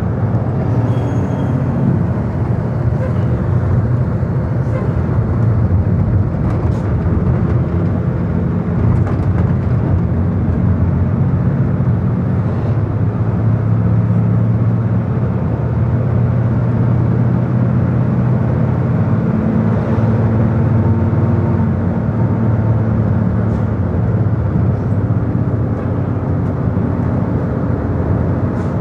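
Steady drone of a vehicle's engine and tyre noise heard from inside the cabin while driving, a low hum that drifts slightly in pitch.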